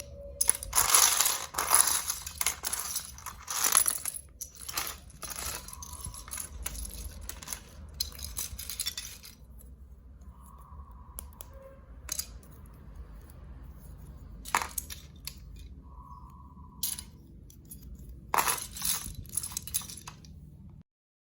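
Marbles clattering and rolling down a plastic building-block marble run, in bursts of rapid clicks and rattles with a couple of brief ringing tones. The clatter is busiest in the first few seconds and again near the end, then cuts off sharply.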